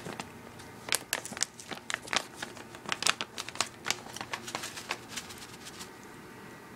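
A bag of dried catnip crinkling and crackling in quick, irregular bursts as a cat digs into it and eats from it. The crackling thins out near the end.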